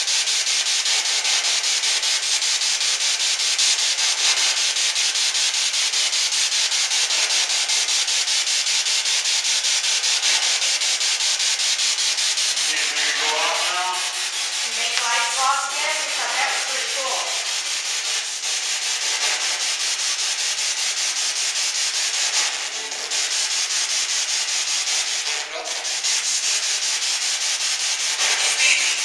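Spirit box sweeping through radio frequencies, giving a loud, steady, choppy static hiss. Short snatches of voice-like sound break through about halfway in.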